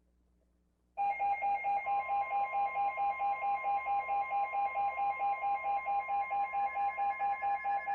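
Emergency alert tones begin about a second in: a rapid pulsing alarm beep, about six beeps a second. About a second later a steady tone joins it, the NOAA Weather Radio warning alarm tone that announces a new flash flood warning.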